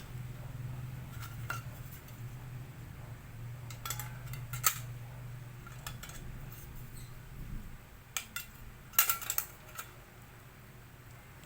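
Light metallic clinks and taps of small metal parts and tools being handled while a laminator is put back together. There are a few scattered clicks and a loud cluster of them about nine seconds in. Under them is a low steady hum that fades out about seven and a half seconds in.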